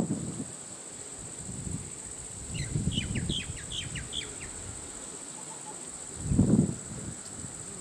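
Outdoor insect chorus droning steadily at a high pitch. Around the middle a bird gives a quick run of about eight short falling chirps. Low rumbles come twice, the louder one near the end.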